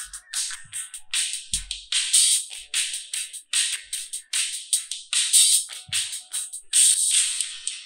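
Music playing out of Tranya T6 wireless earbuds, picked up by a microphone beside them: an electronic track with a quick percussive beat. It sounds thin, with almost no bass.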